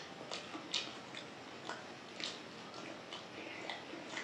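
Close-up eating sounds: a person chewing a mouthful of dal, rice and egg, with wet mouth smacks and clicks coming irregularly a few times a second.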